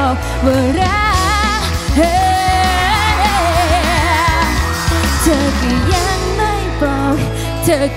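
A singer performing a song into a handheld microphone over loud backing music with a heavy bass, the long notes wavering with vibrato.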